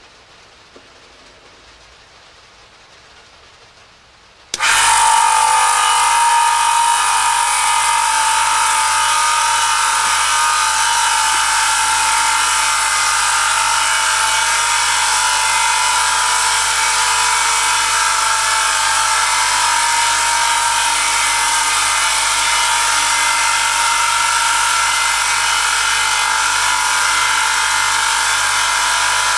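Electric motor of an oil friction test rig starting suddenly about four and a half seconds in, then running steadily with a loud whine of several high tones from its shaft turning under a weighted lever, the metal contact lubricated with Q8 Formula Advance 10W-40 engine oil.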